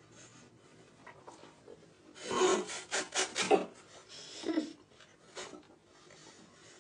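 A person gagging: a cluster of quick rasping heaves a couple of seconds in, then two shorter ones, a reaction to a revolting mouthful.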